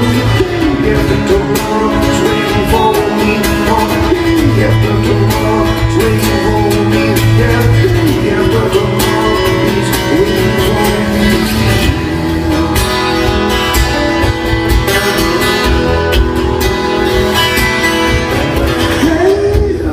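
Two acoustic guitars played live by a duo, strumming and picking through an instrumental passage of a song with bending lead lines.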